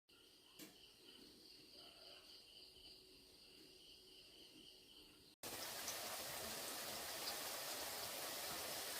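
Faint insect trilling, cricket-like, in two high, slightly pulsing tones. It cuts off abruptly about halfway through and gives way to a louder, steady hiss.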